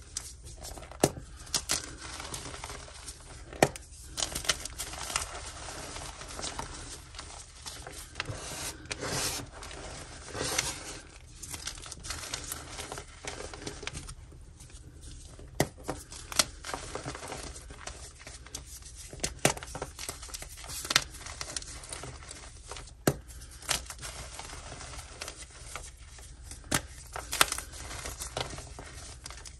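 Blocks of dyed gym chalk crushed and crumbled in bare hands over loose chalk powder: dry, crunchy crumbling with irregular sharp cracks as chunks break apart.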